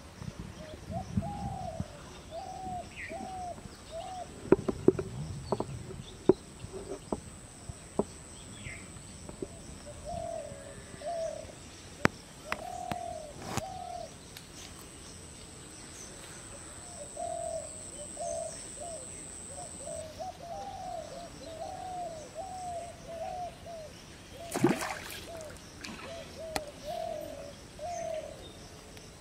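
A bird calling in runs of short, repeated cooing notes, several a second, with a few sharp clicks and knocks. Near the end, a brief splash as the fishing line is lifted out of the pond.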